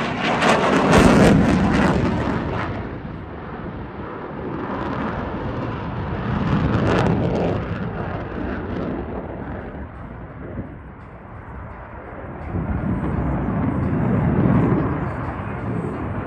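F-22 Raptor fighter jet flying a display, the roar of its twin turbofan engines swelling and fading as it manoeuvres. It is loudest about a second in and swells again about seven seconds in and near the end.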